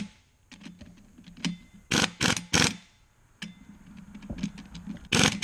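Harbor Freight 3/8-inch impact wrench fired in short bursts, snugging up the bolts of a taper-lock pulley bushing: three quick bursts about two seconds in and another near the end.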